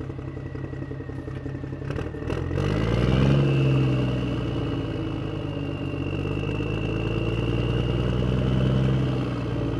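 A vehicle engine running. It revs up about two and a half seconds in, then runs steady.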